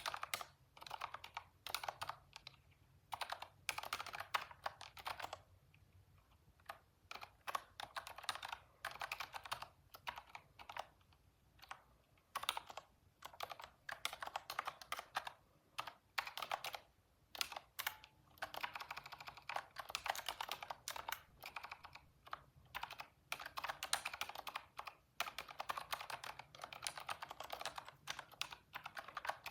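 Typing on a computer keyboard: fast runs of key clicks in bursts of a few seconds, broken by short pauses.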